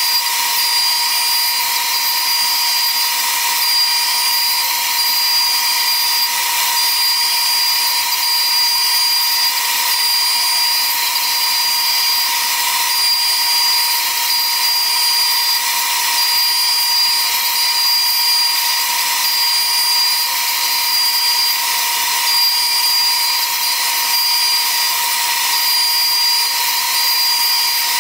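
CNC router spindle running steadily as it cuts curved framing ribs out of a sheet of baltic birch plywood: a constant high whine over hissing cutting noise.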